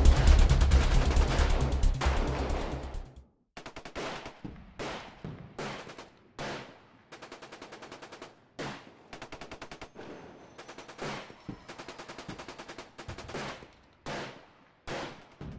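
Machine-gun fire in short rapid bursts, each under a second long, repeating with brief gaps. It opens with a louder, denser stretch of fire and rumble that fades away over the first three seconds.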